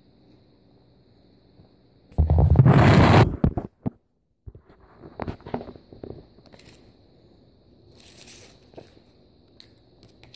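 Handling noise: a loud rustling crackle about two seconds in, a moment of dead silence, then scattered light scrapes and taps as a cardboard sheet and plastic toy figures are moved about.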